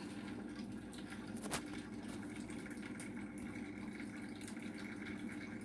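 Steady low hum of room tone with a faint high whine, and a single light click about one and a half seconds in.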